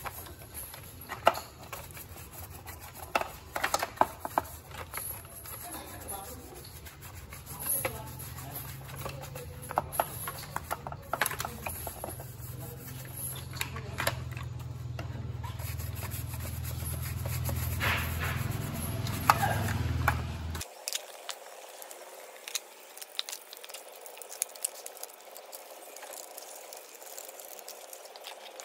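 A brush scrubbing wet plastic video-camera housing parts in a tray of soapy water, with rubbing, splashing and light knocks of the plastic parts being handled. A low hum underneath stops abruptly about two-thirds of the way through, after which the scrubbing and ticking go on more lightly.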